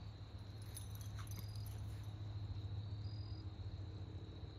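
Faint outdoor ambience: a steady high-pitched insect drone over a low rumble, with a brief light metallic jingle about a second in.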